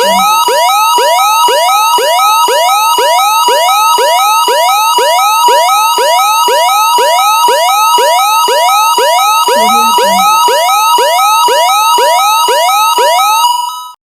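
Canadian Alert Ready emergency attention signal played through an added audio effect: two high tones alternate rapidly, overlaid with rising sweeps that repeat two to three times a second. It fades and cuts off just before the end.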